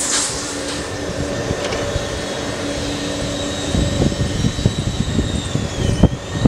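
Airbus A330-200 jet engines on the landing rollout, heard from a distance: a steady high whine over a low rumble. The rumble grows from about four seconds in, and the whine dips slightly near the end.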